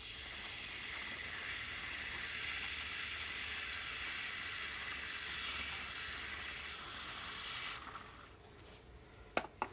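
Aerosol can of WD-40 chain cleaner spraying degreaser onto a motorcycle chain in one long continuous hiss that cuts off about eight seconds in. A couple of light clicks follow near the end.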